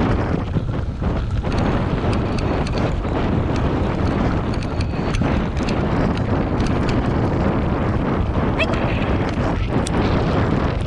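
Wind buffeting the microphone over the rumble of a bike rolling fast on a dirt trail, pulled by two running dogs, with scattered small clicks and rattles.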